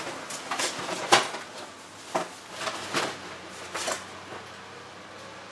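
Knocks and clatter of hard objects being handled and moved around, about half a dozen sharp hits over the first four seconds, the loudest about a second in.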